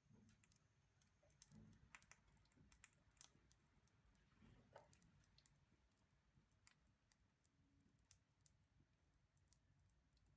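Near silence, with faint, irregular ticks and crackles from cooking oil heating in a wok, a little denser in the first half.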